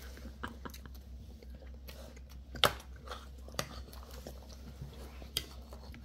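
A child eating cake from a bowl with a spoon: scattered soft clicks and scrapes of the spoon against the bowl, and quiet chewing, with one sharper click a little before the middle.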